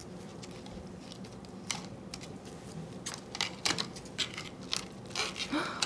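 Scattered small clicks and taps of gloved fingers working a wet tissue into a plastic cup of dye, more of them in the second half.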